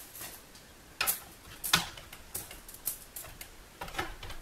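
Samsung soundbar being fitted onto a wooden hanging bracket: a run of sharp clicks and knocks as its case and mounting bracket bump against the wood, the loudest two about one and one and three-quarter seconds in, then several smaller taps.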